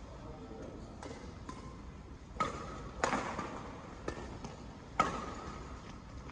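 Badminton rackets striking a shuttlecock during a rally: three sharp smacks, the second about half a second after the first and the third two seconds later, each ringing on in the hall's echo, with fainter taps in between.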